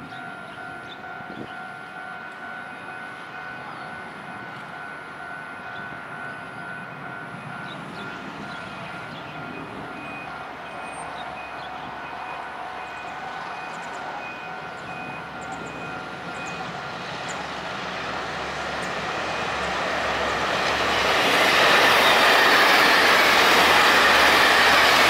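Freight train hauled by an EMD G12 diesel-electric locomotive approaching and passing close by: the locomotive and rolling wagons are faint at first, grow steadily louder from about two-thirds of the way in, and run loud over the last few seconds as it goes past.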